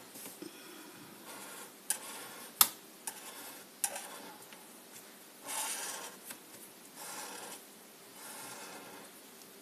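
Felt-tip marker drawn across paper in short scratchy strokes, several in a row with pauses between, and a few sharp taps, the loudest about two and a half seconds in.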